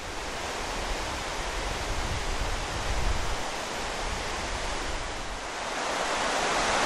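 Steady rush of a creek running over rocks, with a low rumble of wind on the microphone; the water gets a little louder near the end.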